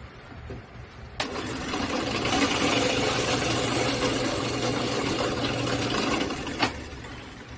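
Benchtop drill press drilling holes for zither pins in a wooden peg piece. It starts suddenly with a click about a second in, runs loud and steady, and cuts off with a click near the end.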